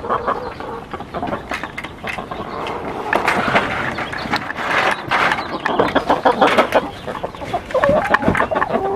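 Backyard hens clucking, with scattered knocks and clicks throughout and a few short pitched clucks near the end.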